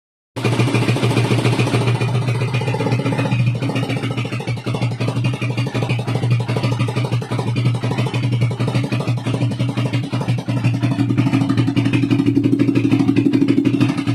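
Honda TMX155 single-cylinder four-stroke pushrod engine running with a loud, rapid valve-train clatter, a little louder in the last few seconds. The mechanic traces the noise to a very loose exhaust valve and a rocker arm that looks broken.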